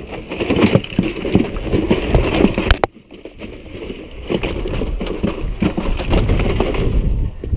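Irregular knocks, bumps and clicks on a small boat's deck and hull as someone moves about and handles gear, with one sharp click just under three seconds in, over a low wind rumble on the microphone.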